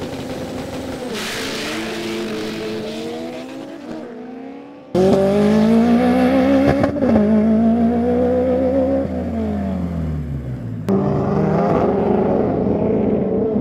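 Modified Honda Civic hatchback race car engines revving hard at high rpm, their pitch rising and wavering under acceleration, in three clips joined by abrupt cuts about five and eleven seconds in. The engine note falls away just before the second cut.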